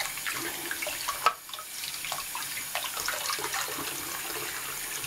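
Tap water from a bathroom faucet running and splashing over a hollow plastic model car body held under the stream, into a sink of soapy water. A single sharp knock about a second in.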